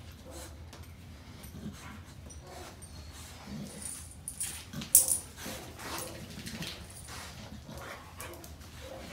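Two dogs at play, a young Great Dane mix and another dog: brief dog vocal sounds and scuffling movement on a hard floor, with one sharp clack about five seconds in.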